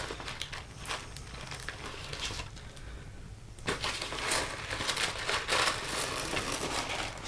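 Packaging crinkling and rustling with small clicks as a bag of new wheel rivets is handled and opened, quieter for a moment partway through, then a sharp click at the very end.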